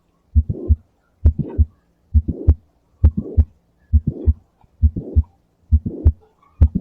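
Recorded heart sounds of mitral valve prolapse: a steady heartbeat of about 65 beats a minute. Between the first and second heart sounds of each beat come a systolic click and a high-pitched late systolic crescendo-decrescendo murmur, the sign of the prolapsing mitral valve.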